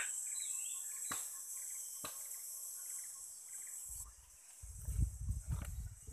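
Steady high-pitched chorus of rainforest insects, with two faint clicks. About four seconds in it cuts off and low rumbling noise on the microphone takes over.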